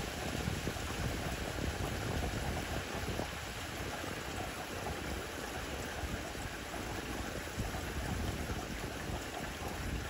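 Steady rain falling on leafy foliage: an even, continuous hiss with a low rumble underneath.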